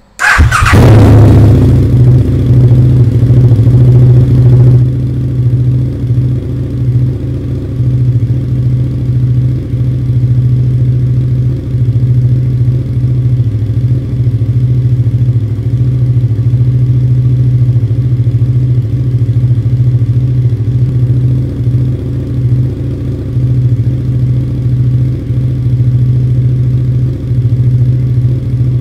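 Motorcycle engine sound effect laid over the picture: it starts abruptly with a brief falling sweep, then runs as a steady low engine drone, a little quieter from about five seconds in.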